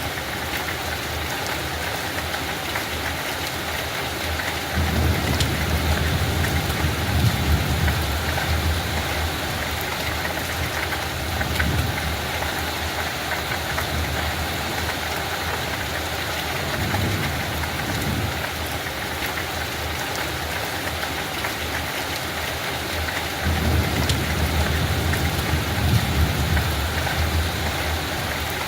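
Steady rain falling on a field, an even hiss, with a low rumble swelling up twice, about five seconds in and again near the end.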